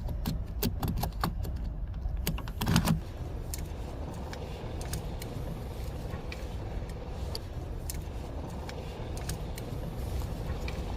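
Light clicks and rattles of small parts being worked loose by hand on a car's exterior door handle, thickest in the first three seconds with one louder knock, then only a few scattered clicks over a steady low rumble.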